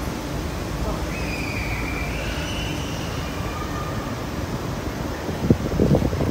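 Steady low rumble, with a faint high whine drifting upward in the first half and a few sharp knocks near the end.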